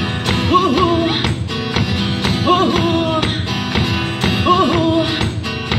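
Live acoustic duo music: steady guitar accompaniment with a short melodic phrase coming back about every two seconds.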